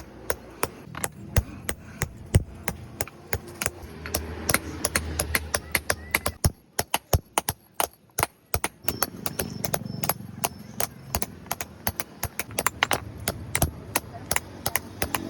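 Stone being chipped and shaped by hand: sharp, irregular strikes several times a second, pausing for about two seconds midway.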